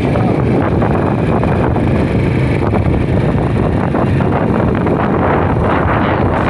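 Wind buffeting the microphone of a phone carried on a moving small motorbike, with the motorbike's engine running underneath. The noise is steady and loud throughout.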